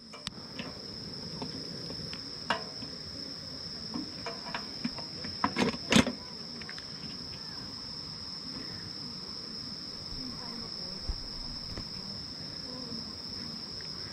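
Insects trilling steadily at one high pitch over the murmur of a stream, with a few sharp knocks and clatters about five to six seconds in.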